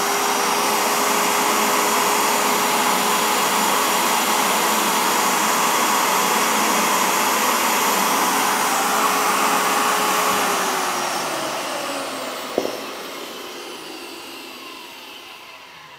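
Makita 5008MG circular saw's brushed motor running at full speed with no load, a steady whine; about ten seconds in it is switched off and winds down, falling in pitch and fading, with one short click partway through the run-down. It runs with its balance fine, showing no rattle on the glass test.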